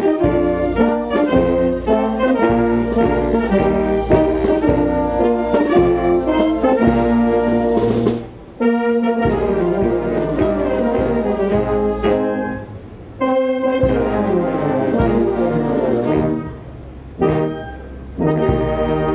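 Brass band with tuba and horns playing a tune in full harmony. The music breaks off abruptly a few times and starts up again.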